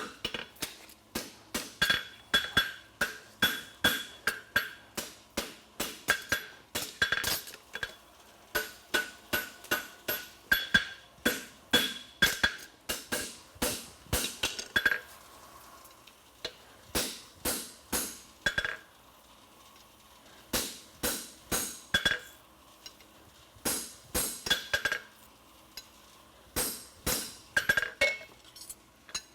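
Hand hammer striking a thick steel horseshoe bar on the bick of an anvil, in runs of two to three blows a second, each blow with a bright metallic ring, pausing a few times. The blows are bending the quarter of a double-caulked hind shoe around the horn.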